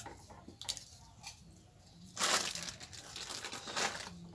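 Short crinkling, rustling handling noises, the loudest about two seconds in and another near the end, with a few light clicks before them.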